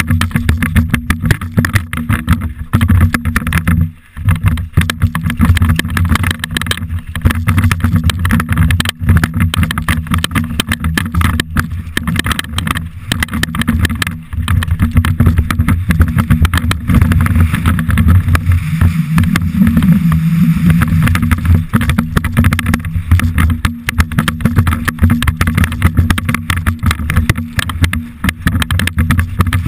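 Downhill mountain bike descending a rocky trail at speed: continuous wind buffeting on the rider's microphone with a dense, irregular rattle and clatter from the bike over loose stones.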